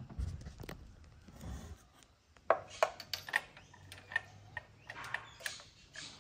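Compression tester's hose and metal fitting being handled and screwed into a spark plug hole: a few dull bumps, then from about two and a half seconds in a string of sharp, irregular metallic clicks and taps.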